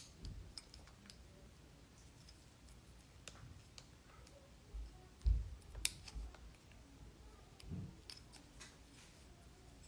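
Faint clicks and light taps of small plastic toy pieces being handled, with a couple of soft thumps and one sharp click about six seconds in.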